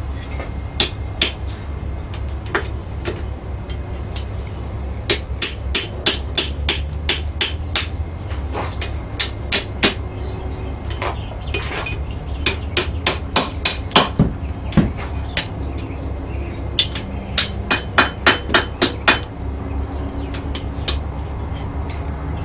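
Blacksmith's hammer striking hot steel on an anvil in runs of quick, ringing blows, about three a second, with short pauses between runs. A steady low hum runs underneath.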